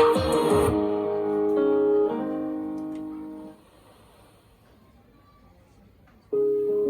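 Instrumental section of a pop song: the full band with drums stops under a second in, leaving held keyboard and guitar chords that fade away by about three and a half seconds in. Near silence follows for close to three seconds, then piano-like chords start again near the end.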